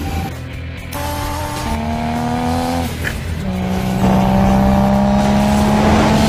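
A race car engine accelerating hard through the gears, the engine note climbing in pitch and dropping back at each of several gear changes, and getting louder about four seconds in.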